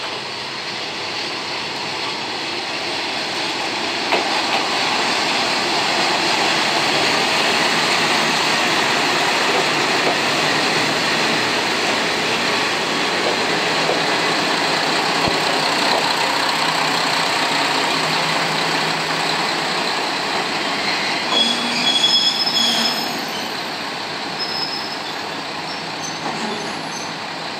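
Kanto Railway KiHa 310 diesel railcars pulling into the platform, their running noise growing louder as they draw close and pass. About three quarters of the way through, a high squeal as the brakes bring the train to a stop, after which the engines keep running at a lower, steady level.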